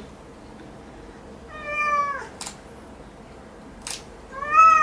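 A house cat meowing twice in protest while having its claws clipped, once about a second and a half in and again near the end. Between the meows come two sharp clicks of the claw clipper.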